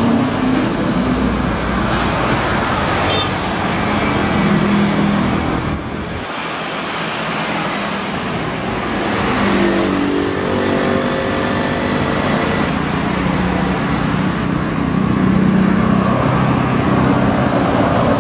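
Road traffic: the engines and tyres of passing vehicles run continuously. About ten seconds in, one passing engine's pitch slides as it goes by.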